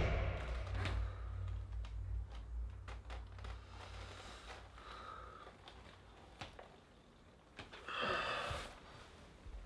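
A man's quiet breathing and small movements as he comes to, with one long, breathy exhale about eight seconds in. A low hum fades away over the first few seconds.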